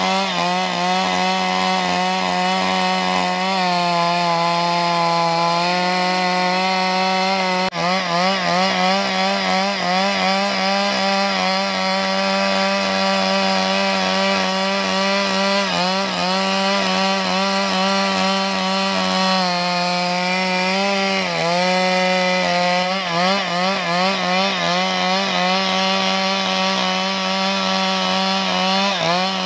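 Stihl 382 two-stroke chainsaw running at full throttle while ripping lengthwise down a wooden plank, its engine pitch wavering up and down as the chain loads and frees in the cut.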